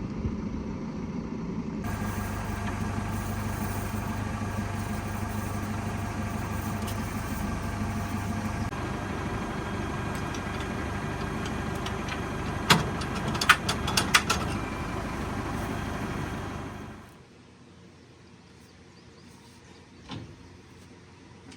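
A vehicle engine running steadily, with a few sharp clicks or clanks near the middle. About three-quarters of the way through it drops away to quiet room tone.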